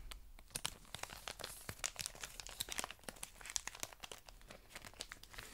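Clear plastic packaging sleeve crinkling and crackling as it is handled, a dense, irregular run of sharp crackles.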